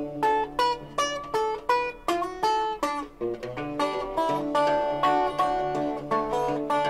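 Instrumental break in a blues song: a plucked string instrument picks a quick melody of single notes, several a second, over a steady bass line.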